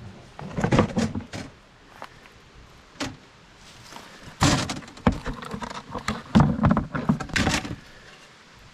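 Irregular knocks, thuds and clatter of hard objects being handled, in clusters with short gaps, some like a door or lid thunking shut.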